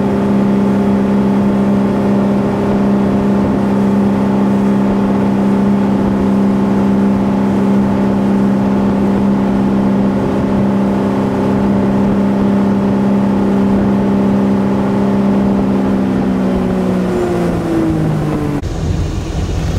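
Ski boat engine running steadily at towing speed over the rush of the wake, its pitch falling over about two seconds near the end as the throttle comes back and the boat slows.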